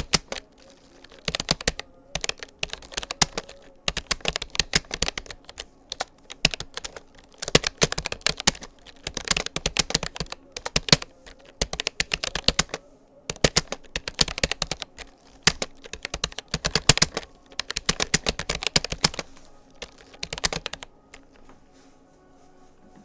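Rapoo computer keyboard being typed on: rapid runs of key clicks in bursts of a second or two with brief pauses between words. The typing stops about two seconds before the end.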